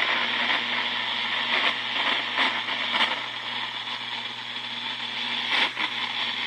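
Radio receiver hissing with static, over a steady low hum, with a few faint crackles.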